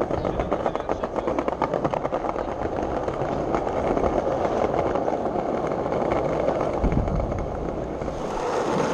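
Skateboard wheels rolling over stone paving: a steady rumble dense with rapid small clicks from the joints.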